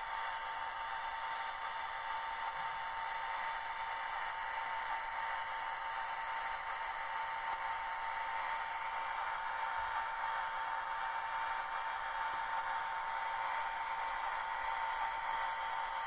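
Model FS D.443 diesel locomotive's sound decoder playing a steady diesel idling sound through its small loudspeaker: a thin, even hum with one constant tone and no deep bass.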